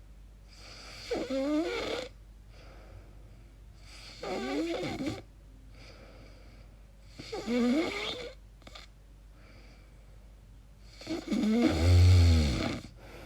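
A sleeping person making strange pitched snoring noises, four times about three seconds apart. Each wavers up and down in pitch, and the last is the loudest and deepest. The sleeper wonders whether these noises are a sign of sleep apnea.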